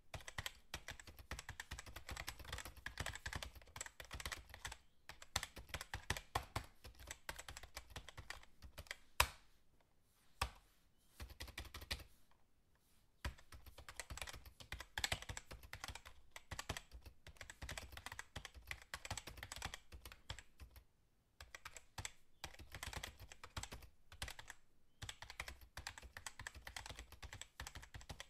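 Fast typing on a computer keyboard: a dense run of rapid key clicks with a few short pauses and one louder keystroke about nine seconds in.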